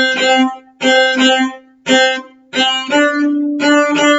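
Cello bowed on the A string in short, separate notes: a run of repeated C naturals, then a phrase that starts on C natural and steps up to the high D played with the fourth finger, about three seconds in.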